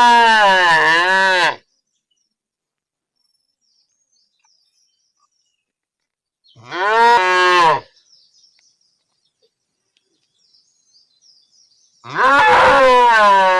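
Cow mooing three times: a call at the start, a shorter one about seven seconds in, and a long one beginning near the end, each bending down and up in pitch.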